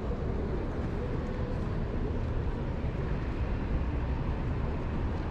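Outdoor city street ambience: a steady low rumble, like distant traffic.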